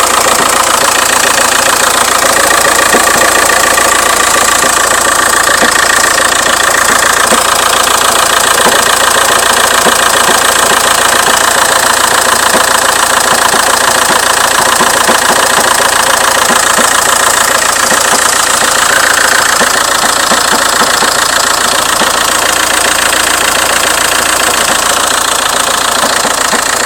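Opel Vectra C's Z19DT 1.9-litre CDTI four-cylinder diesel idling steadily, with a noticeable knocking noise from the engine bay.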